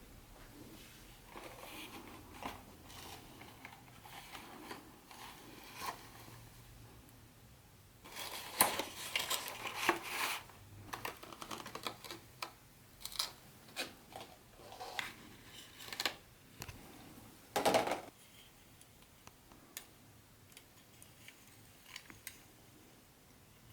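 Hands unboxing a vintage HO-scale model train set: the box and packaging being handled, with scattered clicks, taps and rustling. The handling is busiest about a third of the way in, with one louder rustle about three quarters of the way through.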